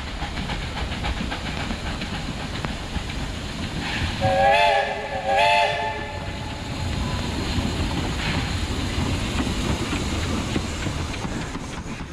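A 1920 Baldwin 4-6-0 steam locomotive running with a steady rumble, sounding its steam whistle twice about four seconds in: two short blasts about half a second apart.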